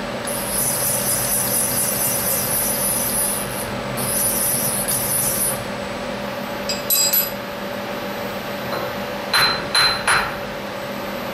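CNC milling machine table traversing under power in two runs, a steady high hiss from the axis drive as the dial indicator sweeps along the vise jaw to check its alignment. Near the end come a few sharp metallic clicks and knocks at the vise.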